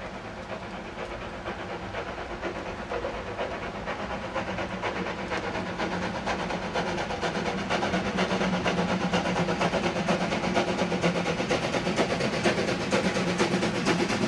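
Class 75 tank steam locomotive 75 1118 approaching under steam with a passenger train: steam exhaust and running gear on the rails growing steadily louder as it nears.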